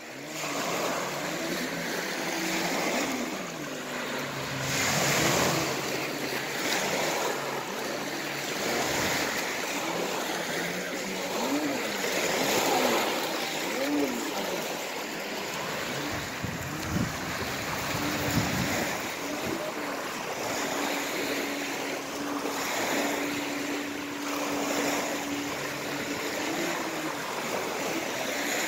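Small lake waves washing and breaking on a pebble shore, swelling and ebbing every few seconds. A faint boat engine hum comes and goes underneath.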